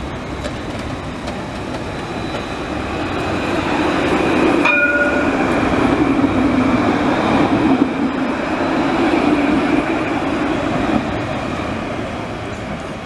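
City tram running past close by, its wheel and motor rumble rising to a peak in the middle and fading away near the end. A short high ring sounds about five seconds in.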